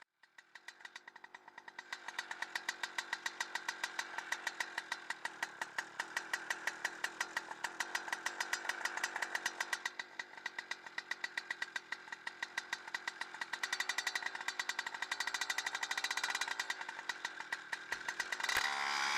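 Radne Raket 120 single-cylinder two-stroke paramotor engine idling with an even, rapid pulse, growing louder near the end.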